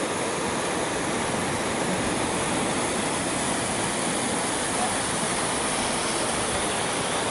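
Steady rushing water, an even unbroken roar of noise.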